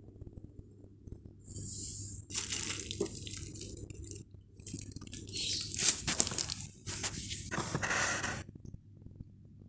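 Stick (MMA) welding arc from a Lakoni Falcon 160E inverter welder crackling and hissing in several runs of one to two seconds with short breaks between them, over a steady low electrical hum.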